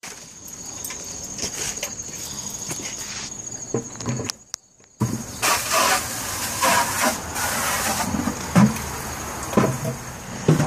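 Outdoor ambience: a steady high-pitched insect trill over a haze of passing traffic, with a few footstep thumps; the sound drops out briefly about four and a half seconds in.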